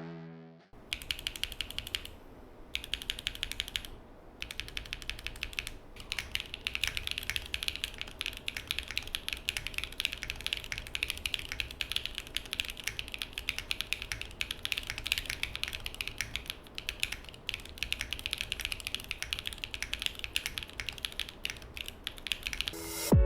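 Typing on a Neo65 mechanical keyboard fitted with Gateron SLAY Type A linear switches: rapid keystroke clacks, in short bursts for the first few seconds, then continuous fast typing.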